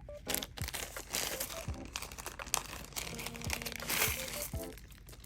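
Small plastic bag of glass beads crinkling as it is handled and opened, with sharp little clicks and rustles throughout.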